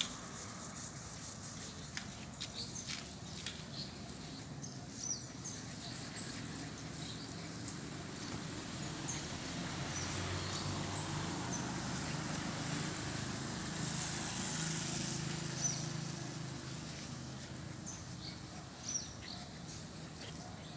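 Outdoor ambience: small birds give short high chirps now and then, and a low rumble swells and fades in the middle, with faint scuffling as Belgian Malinois puppies play in the sand.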